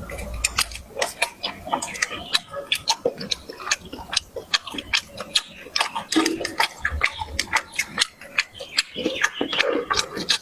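Loud, wet chewing and lip-smacking close to the microphone, a rapid irregular run of smacks and clicks, with a few low thumps.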